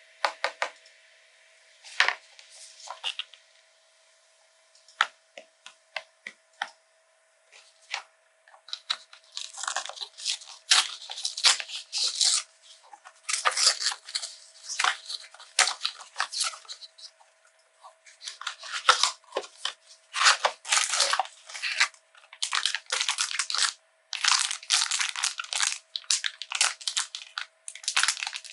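Hands handling and opening a cardboard blind box: a few scattered taps and clicks at first, then from about nine seconds in, dense scratchy rustling and tearing of the packaging. Near the end the sealed foil bag inside crinkles as it is pulled open.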